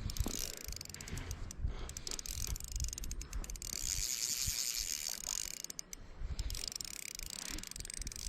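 Spinning reel clicking and whirring as a hooked fish is fought, the drag and retrieve working against the running fish.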